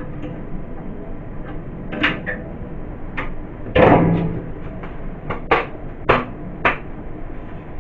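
Hard knocks and clatters from fridge shelves and containers being handled: about six separate knocks, the loudest a longer clatter about four seconds in.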